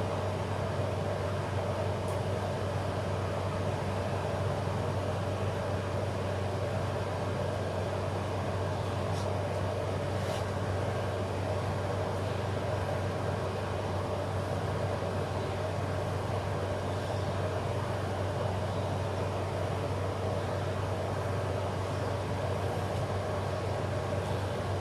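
Steady low background hum that does not change, with two faint ticks about nine and ten seconds in. The glue and paper handling is not heard over it.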